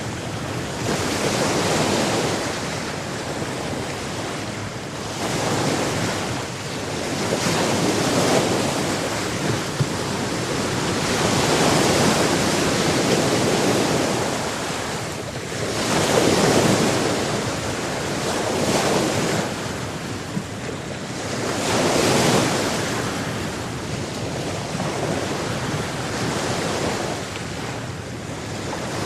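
Sea surf: waves breaking and washing on the shore in repeated swells every few seconds, with wind noise on the microphone.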